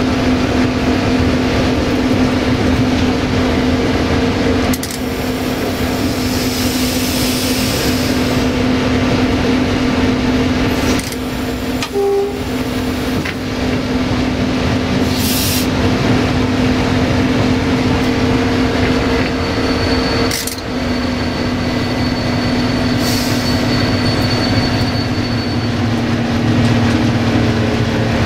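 Sulzer diesel engine of a 060-DA (LDE2100) diesel-electric locomotive running steadily, heard from inside the cab over the rumble of the wheels on the rails, with a few brief knocks.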